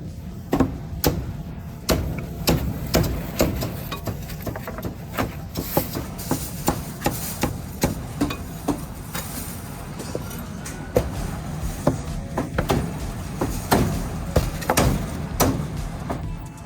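Cleaver chopping roast meat on a chopping block: a run of sharp, irregular knocks, about two or three a second, each blow banging on the block.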